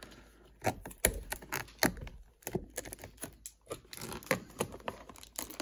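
Fingers picking, tapping and scraping at a sealed cardboard Prizm basketball blaster box, an irregular string of sharp clicks and scratchy scrapes as the box resists opening.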